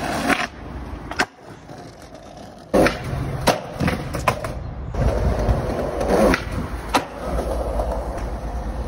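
Skateboard wheels rolling on concrete, with several sharp clacks of the board hitting the ground. From about five seconds in, the rolling rumble grows louder.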